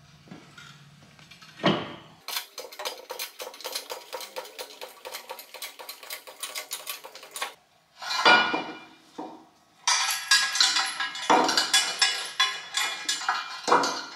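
Background music with a quick, even beat, broken by loud metal clanks and clinks of a heavy steel crane frame and a steel axle stand being handled. A sharp knock comes about two seconds in, and another loud clank comes about eight seconds in.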